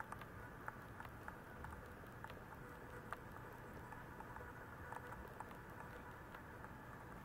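Faint steady room hiss with scattered soft clicks and light rustles.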